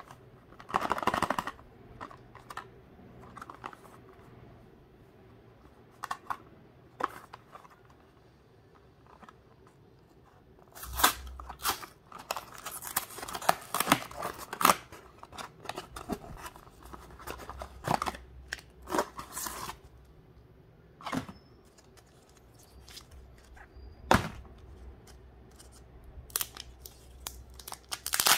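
Cardboard gift box being handled and torn open, with bursts of tearing and rustling, followed by a plastic capsule egg being gripped and pulled, giving several sharp clicks and snaps.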